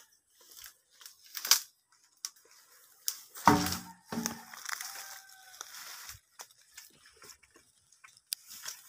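Footsteps and brush rustling through dry leaves and undergrowth, with irregular crunching and tearing of vegetation. The loudest moment is a brief burst about three and a half seconds in.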